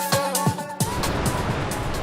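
Background song with a drum beat and a sung line that cuts off suddenly just under a second in. A steady rushing noise follows.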